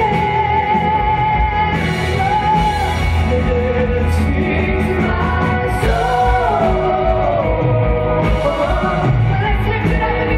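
Live contemporary worship music: several singers with microphones holding long sung notes over a band of acoustic and electric guitars with a steady low bass.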